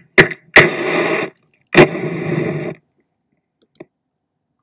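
Matches struck on a matchbox: a quick scratch, then two strikes that each flare with a hiss lasting about a second, the second a little over a second after the first, and a faint tick near the end.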